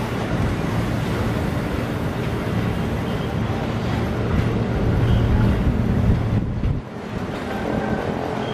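Steel wheels of a KRL electric commuter train's bogies rolling over a railway switch, a steady low rumble of wheels on rail. It grows louder toward the middle, then drops off suddenly about seven seconds in.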